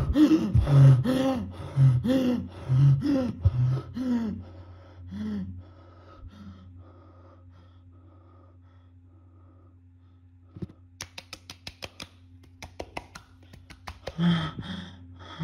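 A woman's choked, gasping cries, about two a second, falling in pitch and fading out over the first five seconds as she is attacked. After a stretch of low hum there is a thump, then a quick run of clicks for about three seconds. Near the end she gasps for breath, waking from the nightmare.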